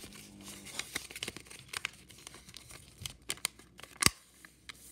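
A sheet of paper being folded and creased by hand, with irregular crinkles and crackles, and a single sharp knock about four seconds in.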